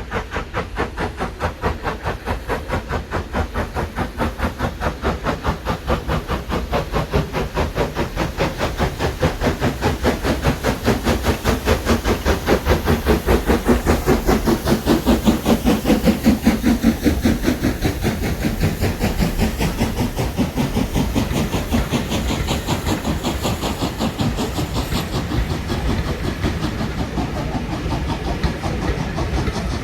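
Steam locomotive working past, its exhaust beats coming quickly and evenly with a hiss of steam, growing louder to a peak about halfway through and then fading away.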